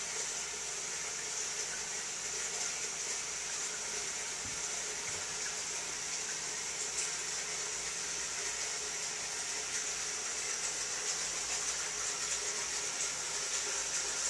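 Steady background hiss, even in level, with no distinct sounds standing out.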